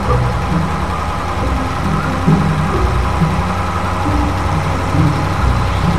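A truck engine sound effect: a heavy engine running steadily at an idle-like pace with a continuous low rumble.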